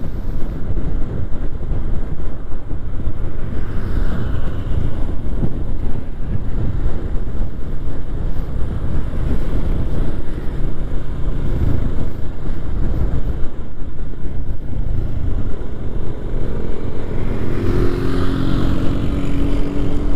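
Wind rushing over the microphone of a riding Yamaha MX King 150 motorcycle, with its single-cylinder four-stroke engine running underneath at steady cruising speed. A steadier engine tone comes through near the end.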